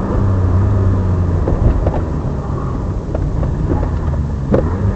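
Alpine A310's 2.7-litre V6 engine running as the rally car drives at speed, heard from the cabin, with a few sharp knocks and rattles as it goes.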